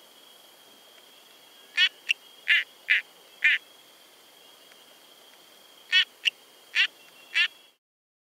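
Dendropsophus norandinus tree frog calling in short, rapidly pulsed creaking notes. Five notes come in a cluster about two seconds in and four more near the end, over a steady thin high tone. The sound cuts off abruptly shortly before the end.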